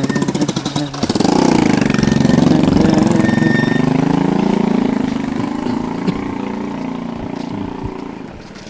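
A motorbike engine running close by. It gets loud about a second in, drops in pitch, then holds steady and fades away gradually over several seconds.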